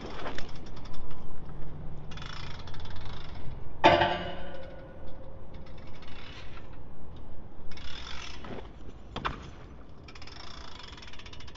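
Mechanical ratcheting and clattering, broken by a few sharp knocks; one loud knock about four seconds in rings on briefly.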